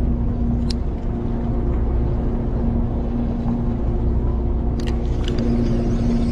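Boat engine running steadily: a low rumble with a steady hum, with a couple of short clicks, one about a second in and one near the end.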